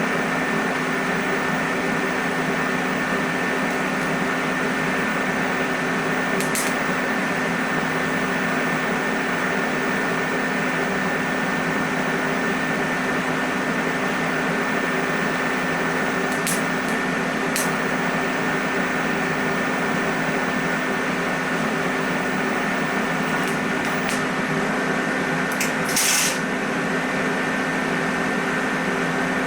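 Steady electrical machine hum with a few fixed tones over a hiss, unbroken throughout, with a few brief sharp clicks about six seconds in, twice around sixteen to eighteen seconds, and once, slightly louder, near the end.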